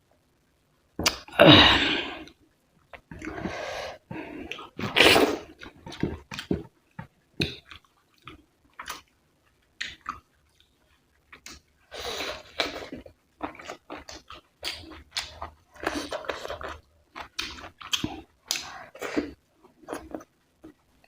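Close-miked chewing and mouth sounds of someone eating rice and curry: irregular wet smacks and short clicks, the loudest about a second and a half in.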